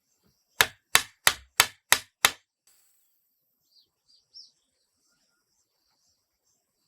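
Six quick hammer blows, about three a second, then the hammering stops.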